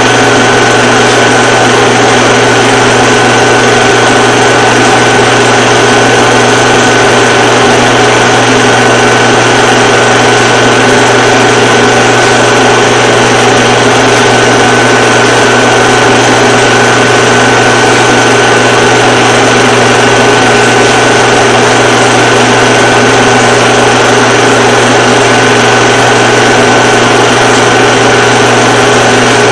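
A loud, unchanging mechanical drone: a steady low hum with a thin whine above it and a noisy hiss over everything.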